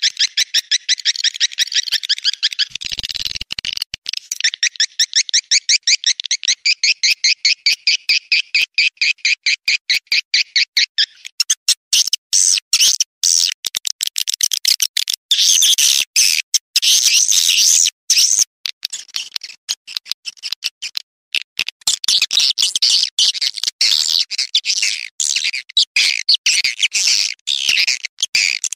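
Swiftlet calls, the lure sound (suara panggil) played to draw walet into swiftlet houses. For about eleven seconds it is a fast, even train of high chirps. Then it turns into denser, busier twittering with short breaks. There is a brief low thud about three seconds in.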